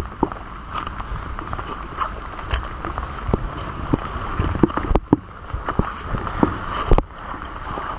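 Plastic bag crinkling and rustling as it is handled, over a steady hiss of rain, with a couple of sharper knocks about five and seven seconds in.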